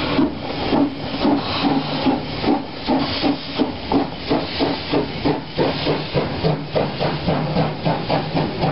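Steam locomotive pulling away, its exhaust chuffing in a quickening rhythm, from about two beats a second to about four or five, over hissing steam.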